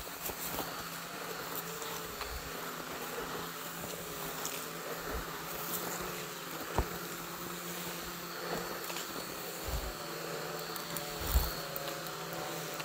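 Quadcopter drone propellers buzzing in a steady hum whose pitch wavers slightly, with a couple of brief low thumps about 7 and 11 seconds in.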